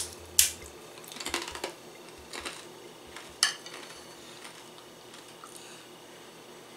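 A handful of short crunches and clicks in the first three and a half seconds, the loudest about half a second in: bites into a crisp corn tostada and a metal spoon clinking against a ceramic soup bowl.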